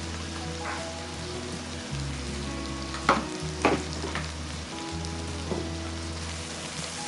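Food sizzling as it fries in hot oil in a pan, with two sharp knocks about three seconds in.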